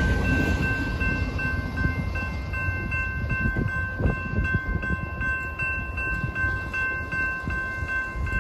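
Railroad crossing warning bell ringing in a fast, even rhythm while the crossing gates rise after the train has cleared. The low rumble of the departing train fades away at the start.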